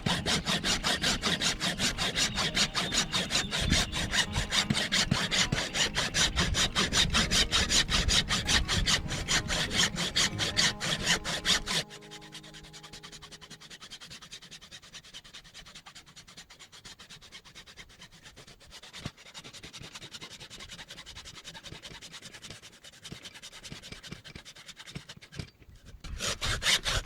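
A saw cutting through the donkey's overgrown, very hard hoof horn in fast, even strokes. The horn is so hard the saw barely gets through. About twelve seconds in the sawing stops and the sound falls much fainter, and the strokes start again near the end.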